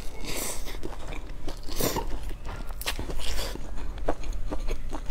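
Biting and chewing a crisp pan-fried stuffed flatbread, with a raw green onion stalk, the crust crunching in short irregular bites.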